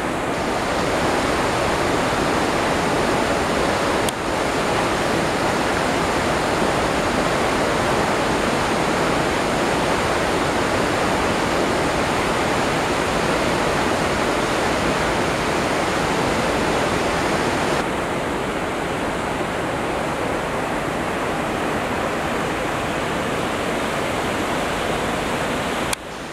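River water rushing over boulders in a rapid: a steady, even rush of water noise.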